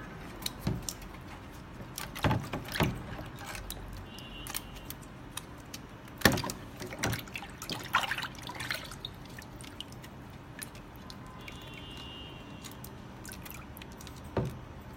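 Water sloshing and splashing in a plastic tub as hands rub a 3D-printed PLA part under water, washing off dissolved PVA support material. A few irregular sharper splashes and knocks stand out.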